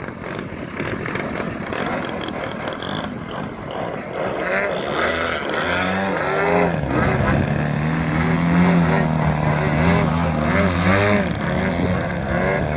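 Engines and propellers of two aerobatic radio-controlled model planes flying together, their pitch rising and falling with the throttle as they manoeuvre, then holding steadier in the second half.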